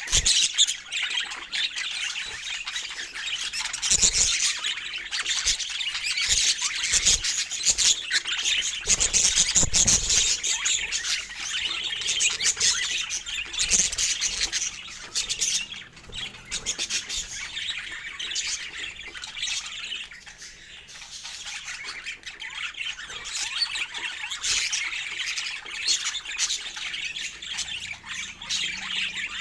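Budgerigars chattering and squawking with no pause, a dense run of quick high calls, with a few dull thumps about 4 and 10 seconds in.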